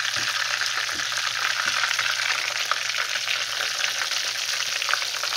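Flour-dredged chicken drumsticks frying in hot oil in a skillet: a steady sizzle with fine crackles throughout.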